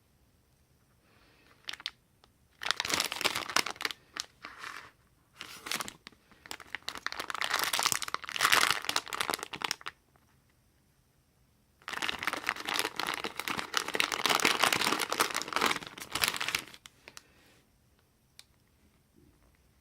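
Crinkling and rustling of plastic packaging being handled, in three long bouts separated by short pauses.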